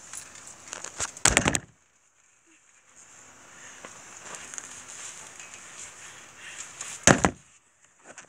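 Handling noise on the recording phone: low rustling with two short, loud rubbing knocks, about a second in and again near the end, and a brief cut-out just after the first.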